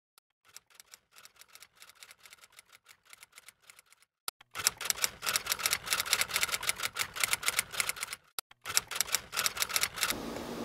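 Typewriter keystroke sound effect: rapid clatter of key clicks, faint at first and much louder from about four and a half seconds in, with a brief break a little after eight seconds.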